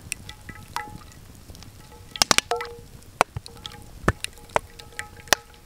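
Oil poured in a thin stream into a metal pan over a campfire, with scattered sharp crackles, a cluster of loud clicks about two seconds in and a deep knock about four seconds in. Faint steady ringing tones hang between the clicks.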